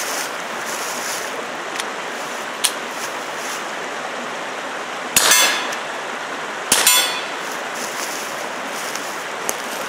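Two suppressed shots from a Taurus TX22 .22 LR pistol fitted with a fuel-filter suppressor, about a second and a half apart. The ammunition is not subsonic, so each shot is a short, sharp report. A steady rushing hiss runs underneath.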